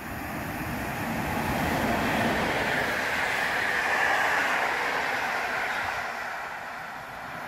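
PKP Intercity passenger train, an electric locomotive hauling coaches, passing close by: a rush of wheels on rails and air that swells to its loudest a few seconds in, then fades as the coaches run past.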